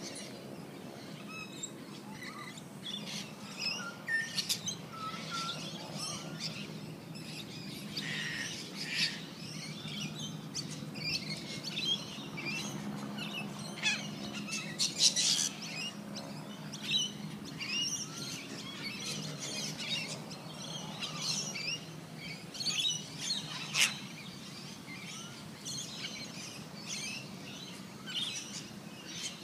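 Many small birds chirping and twittering in quick, scattered calls throughout, over a steady low hum.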